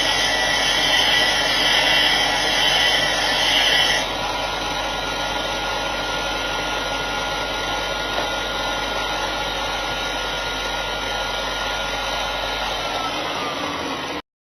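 Workzone combination bench grinder and sander running with a steady motor whine; a louder, harsher high sound drops away about four seconds in. Near the end the whine falls in pitch as the motor winds down, then the sound cuts off abruptly.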